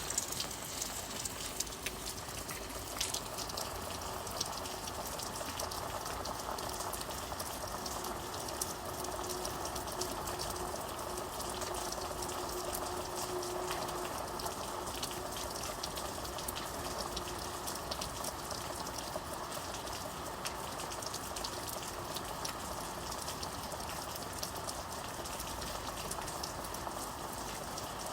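Steady rain falling, an even hiss dotted with the ticks of individual drops striking a surface.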